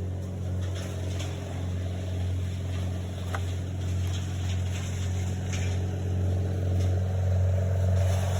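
A vehicle engine idling steadily, giving a low, even hum.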